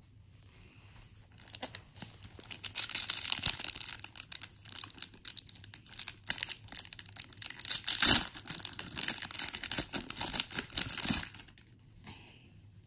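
Pokémon card booster pack's foil wrapper being torn open and crinkled: a dense, crackly rustle that starts about a second and a half in and stops a little before the end.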